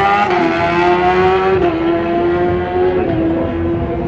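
Harley-Davidson drag motorcycle engine running hard down the strip, one sustained engine note whose pitch steps down slightly twice.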